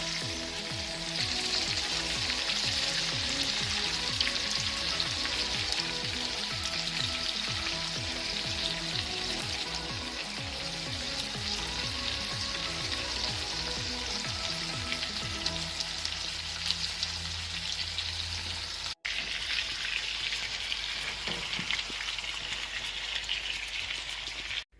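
Chicken frying in bacon grease with onions and cheese, sizzling steadily in the pan, with a brief break about three-quarters through.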